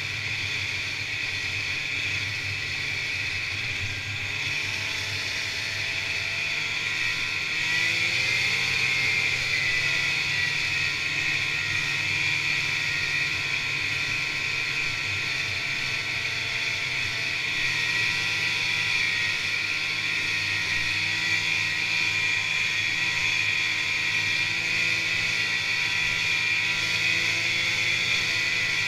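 Fan-cooled two-stroke engine of a 1986 Polaris Indy Trail 488 snowmobile running steadily under way on the trail, picking up a little about eight seconds in.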